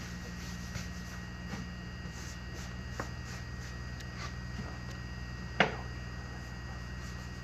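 Steady low electrical hum with scattered faint clicks, and one sharper, louder click a little past halfway.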